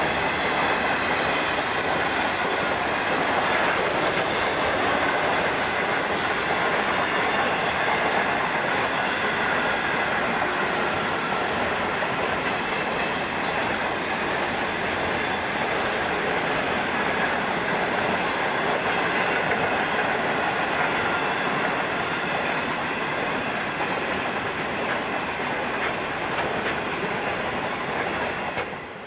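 Freight train of grain hopper wagons rolling past: a steady rumble of steel wheels on the rails with scattered clicks as the wheels cross rail joints. The sound drops away at the very end as the last wagon goes by.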